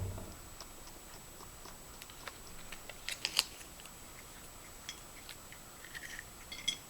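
Small plastic parts of a Kinder Surprise egg's capsule and toy being handled and clicked together, with scattered sharp clicks and light crackling. A dull knock comes at the start, and a quick cluster of clicks about three seconds in.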